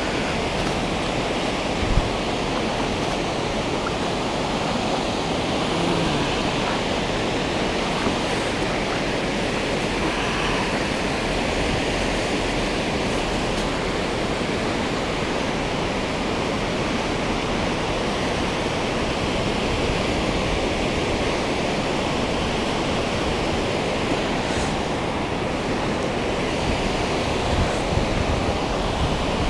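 Steady rushing noise of a flowing river's current, even and unbroken, with one brief knock about two seconds in.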